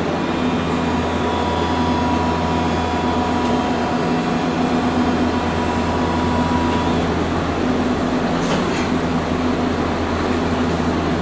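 Hiroshima Electric Railway 800 series tram heard from inside the car: a loud, steady running rumble with low hum, and a steady high tone for the first several seconds. A short hiss comes about eight and a half seconds in.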